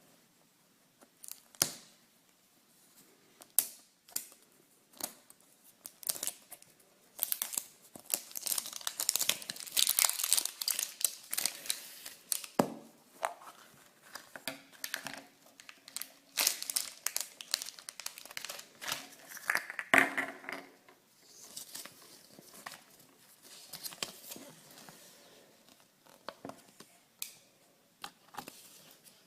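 Wrapping being torn open and crinkled by hand, in spells of dense rustling broken by scattered sharp clicks and knocks. About two-thirds of the way through comes a short squeaky tone, the loudest moment.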